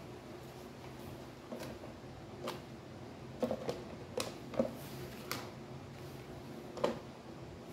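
Cut sections of an empty 4-litre plastic detergent bottle being handled, giving scattered light clicks and crinkles of thin plastic, over a faint steady hum.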